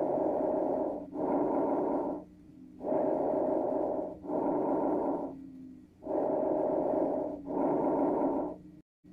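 Breath sounds as heard through a stethoscope: three full breaths, each an in-breath followed straight away by an out-breath, with a short pause between breaths. The sound cuts out completely for a moment near the end.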